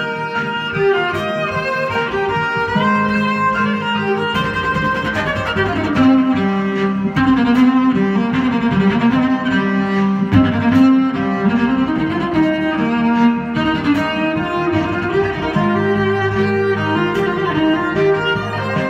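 Electric violin playing a bowed melody from an original pop song, with a lower bass line sustaining underneath.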